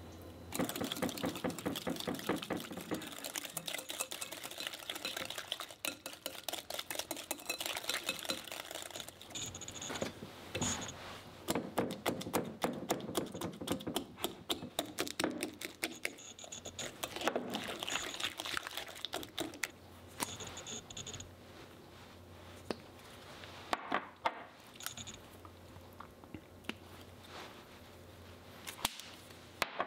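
Wire whisk beating wet cake batter in a glass mixing bowl: a fast, steady run of clicks and scrapes against the glass. It stops about 20 seconds in, after which a few light taps follow.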